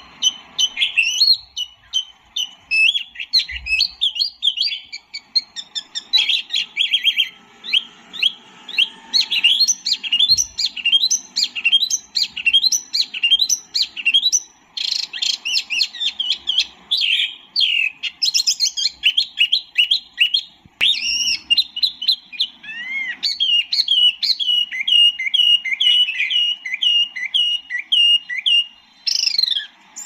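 A songbird known to bird keepers as tieu mi, or mini hwamei, singing a long, fast song of rapidly repeated sweeping whistled notes, several a second, with only brief pauses.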